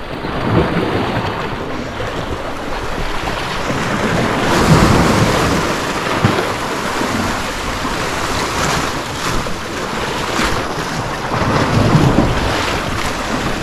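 Sea waves surging and washing against the rocks below, with wind buffeting the microphone. The wash swells louder about five seconds in and again near the end.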